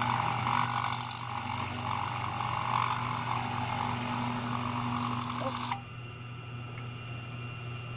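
Vertical milling machine's end mill cutting into an aluminium vacuum pump housing: a steady, loud cutting whine and hiss of chips that stops suddenly about three-quarters of the way through. A lower steady hum carries on after it.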